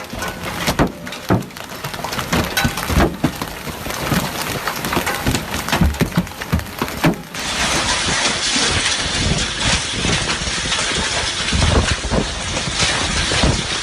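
Hailstones pelting hard surfaces: a dense clatter of sharp, irregular impacts over a steady hiss, which becomes thicker and steadier after a cut about seven seconds in.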